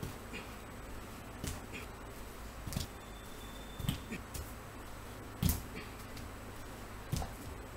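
Scattered sharp taps and thuds of feet stepping and landing on a hard floor during kicking practice, about eight in all, the loudest about five and a half seconds in, over a steady low hum.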